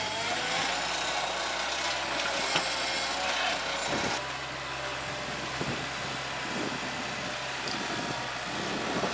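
Engine of a Bobcat skid-steer loader running steadily. The sound changes abruptly about four seconds in.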